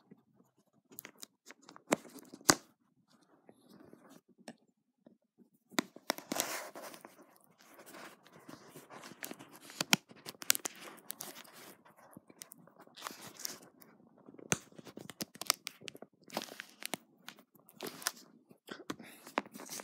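Packaging of a cardboard retail box being opened one-handed: irregular tearing and rustling, with a few sharp snaps and a short lull after the first few seconds.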